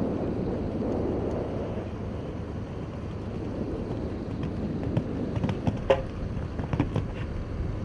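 Steady low wind rumble on the microphone, with a few sharp knocks about five to seven seconds in as the horse takes off and lands over a show-jumping fence.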